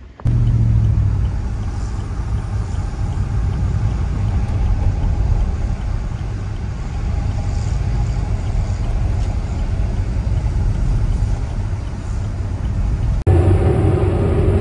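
Steady engine drone and road rumble inside a car's cabin, following a tractor along a road. About a second before the end it cuts to a louder, steady diesel tractor engine, heard from the seat of a tractor being towed behind it.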